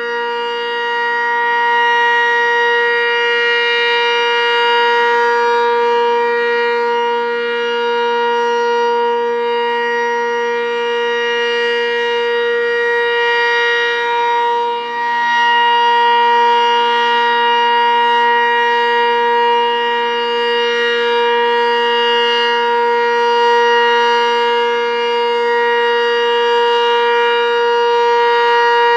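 Sentry 20V2T electromechanical outdoor warning siren sounding at full speed, holding a steady pitch with gently swelling and fading loudness.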